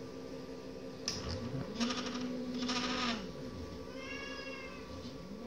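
Stepper motors of a DIY filament extruder line whining over a steady motor hum. One motor's tone rises, holds for about a second and a half, falls away, then rises again near the end: the leveler's stepper ramping up and down as it shifts the filament guide back and forth across the winding spool.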